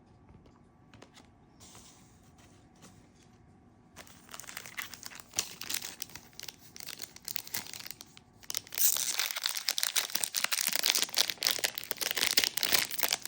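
Plastic trading-card pack wrapper crinkling as it is handled and torn open, starting about four seconds in and getting louder and busier about halfway through.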